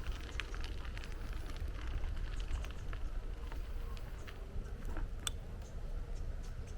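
Bicycle riding along a path: a steady low wind rumble on the microphone, with scattered crackles and clicks from the tyres and the bike, the sharpest about five seconds in.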